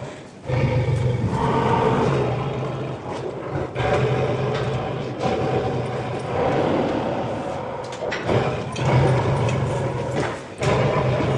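Creature sound effects for the Sea Eater, a fictional sea monster: long, low growling roars with a deep hum under them, one after another, with brief breaks near the start and near the end.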